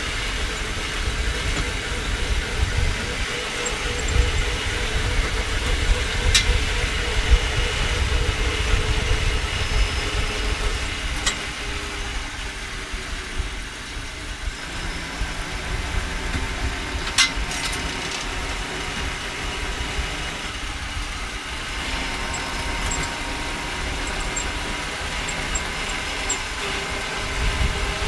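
Home-built battery-electric rail rider running along the track: a steady low rumble from its wheels on the rails, with a faint hum from the electric drive motor. A few sharp clicks stand out along the way.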